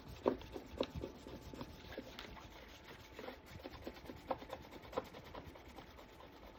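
Chalk paint being wiped and rubbed off a silicone craft mat: faint, irregular rubbing with short scraping strokes, a few sharper ones near the start and about five seconds in. It takes some effort, because dried chalk paint clings to silicone.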